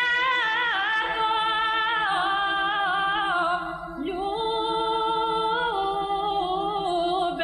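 A woman singing a Bulgarian folk song in an ornamented, wavering melody over a steady held lower note, with a short break for breath about halfway.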